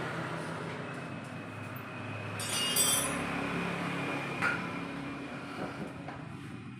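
An engine running steadily and slowly fading, with a brief high metallic ringing about two and a half seconds in and a sharp click a little later.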